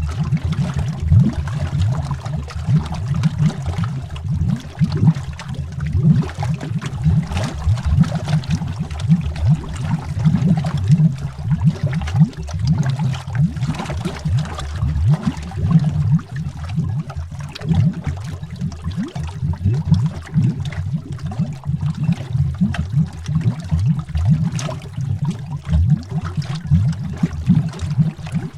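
Underwater bubbles rising in a continuous stream: dense, low, gurgling bubble pops with no pause.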